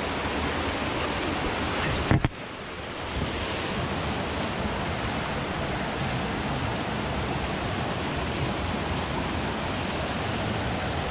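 Steady rush of a mountain stream's flowing water, with a single sharp knock about two seconds in.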